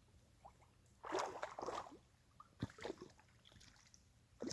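Brief splashing and sloshing of shallow river water as a hooked snapping turtle struggles while being pulled toward the bank, in a few short bursts, the longest about a second in.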